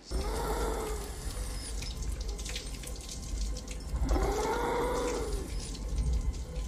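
Film soundtrack: a steady rushing noise like running water, over a deep rumble, starting abruptly, with a swelling tone that rises and falls twice.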